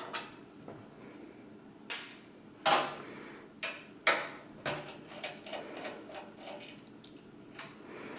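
Scattered sharp metallic clicks and knocks as the power supply's screws are taken out of a steel desktop computer case with a screwdriver and the chassis is handled. Two knocks near the middle are the loudest.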